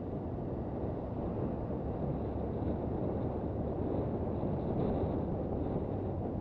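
Honda CB400 Super Bold'or's inline-four engine running steadily while riding, mixed with wind noise on the microphone.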